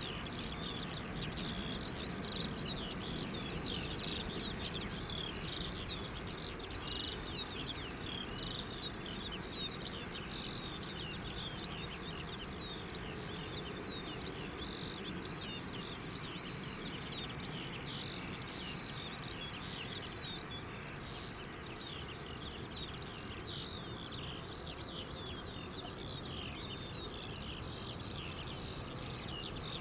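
Far-off, steady rumble of a Boeing 737-800's CFM56 jet engines at takeoff power, easing slightly as the airliner rolls away, with many birds chirping rapidly over it.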